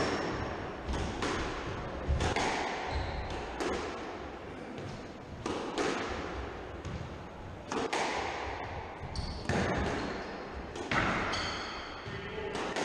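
Squash rally: the ball cracking off rackets and the court walls about once a second, each hit ringing in the enclosed court, with a few short high squeaks of shoes on the wooden floor near the end.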